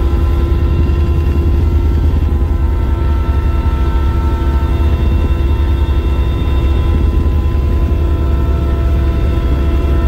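Aircraft in flight heard from inside its cabin: a loud, steady, deep rumble with several steady whining tones above it.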